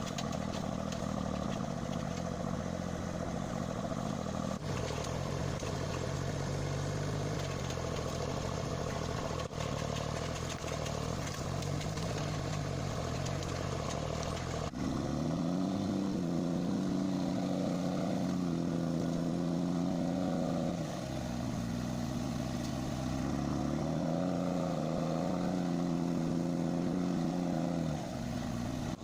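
Engine of a heavy forestry machine running. About halfway through, its pitch rises and falls several times as it revs under load.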